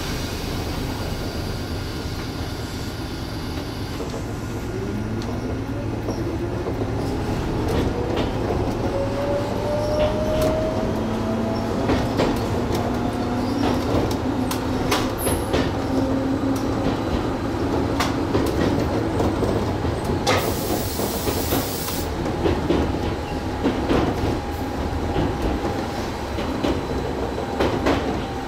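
Gakunan Railway electric train running on the line, its motor whine rising in pitch as it accelerates and then holding steady, with wheels clicking over rail joints. About two-thirds of the way through there is a brief hiss lasting about two seconds.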